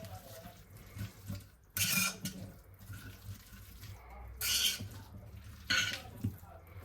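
A small spoon mixing a salad in a bowl, three short scraping sweeps of food and spoon against the bowl.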